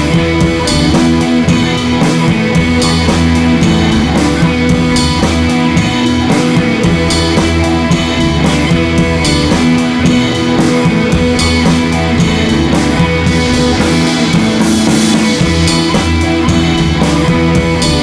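Rock background music with guitar and a steady drum beat.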